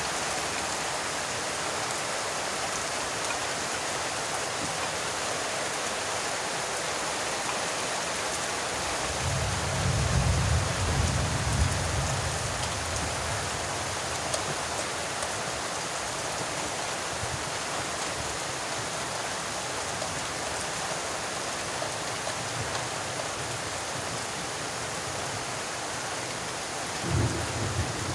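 Steady rain falling, with a low rumble of thunder about ten seconds in that lasts a few seconds, and another starting near the end.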